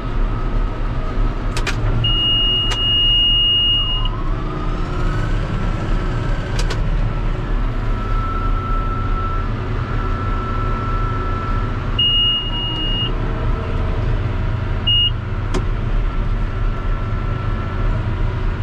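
Tractor engine running steadily while pulling a round baler, with a high electronic beep from the baler's control box: a long beep about two seconds in, another around twelve seconds, and a short one near the end. A few sharp clicks and a pitch that slides upward briefly around five seconds sit under the engine.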